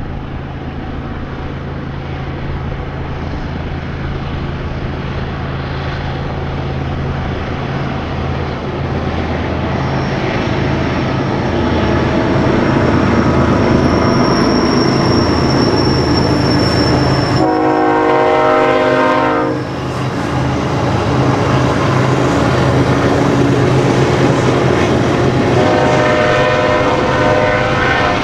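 BNSF freight train's lead diesel locomotives passing close by, their engines' low drone growing louder as they near, with a thin high whine partway through. The locomotive horn blows once for about two seconds, a little past the middle, and sounds again near the end.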